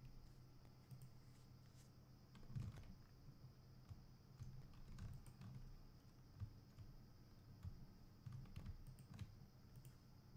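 Faint, scattered clicks of a computer keyboard and mouse, over a steady low hum.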